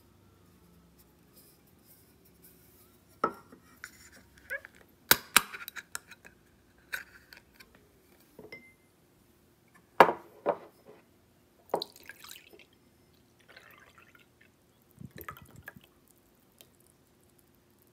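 Sharp clicks and knocks as a can of canned coffee is handled and its pull tab opened, the loudest about five and ten seconds in. Near the end, coffee pours from the can into a glass tumbler.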